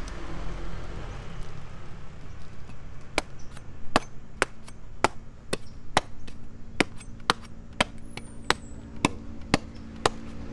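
Knife blade chopping into palmyra palm fruits: a steady run of sharp strokes at about two a second, starting about three seconds in, over a low background rumble.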